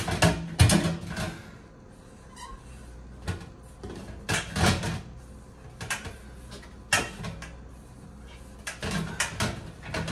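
Short clusters of knocks, taps and rattles as a plastic boiler flue pipe is handled and turned on an aluminium stepladder, with quieter gaps between them.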